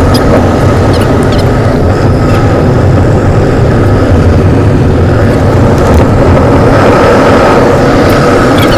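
Loud, steady road and engine noise of a moving car heard from inside the cabin, with a faint steady whine over it.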